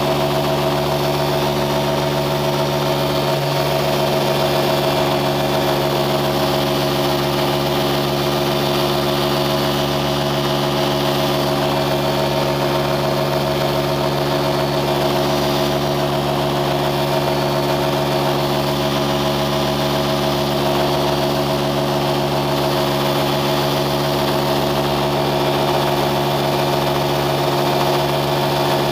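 An engine running steadily at an unchanging speed.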